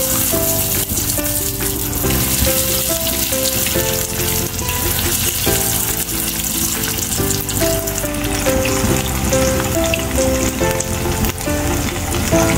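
Breaded chicken-and-cheese croquettes deep-frying in hot oil, a steady loud sizzle, with background music playing a simple melody.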